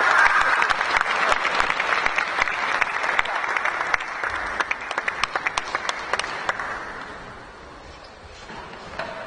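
Audience applause in an arena greeting a won point: many hands clapping at once, fading away about seven seconds in.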